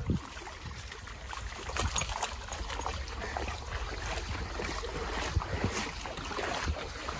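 Splashing and sloshing of dogs wading through a shallow creek, over the steady rush of the stream, with wind rumbling on the microphone.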